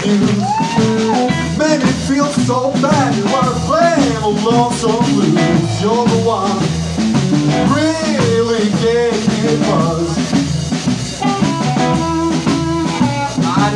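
Live blues band playing: drums and archtop electric guitar, with a lead melody line that bends up and down in pitch over the backing.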